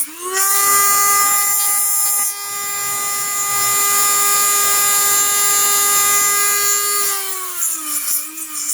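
Dremel rotary tool running at high speed with a steady whine, grinding down plastic body posts. Its pitch climbs just after the start, holds, and sags about seven seconds in.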